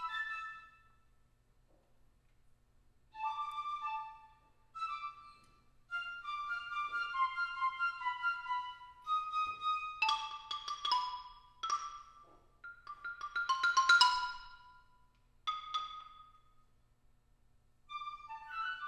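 Birdsong-like phrases of high piccolo notes with mallet percussion such as marimba and glockenspiel, in short bursts separated by pauses. Past the middle it builds to a dense flurry of struck notes, the loudest moment, then thins out to a few separate calls.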